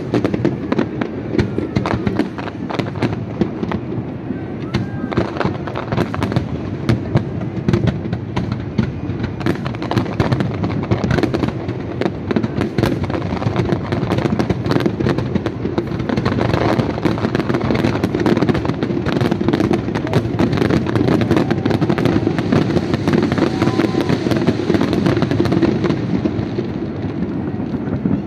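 Aerial fireworks display: a dense, unbroken barrage of overlapping shell bursts, with many sharp pops and bangs every second.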